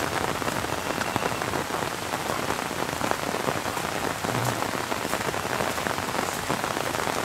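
Steady rain falling, a dense, even patter of drops.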